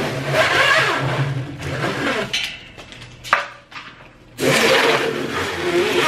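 Plastic packing strap being cut and dragged out from around a washing machine's packaging: two long rasping scrapes of about two seconds each, with a single sharp click between them.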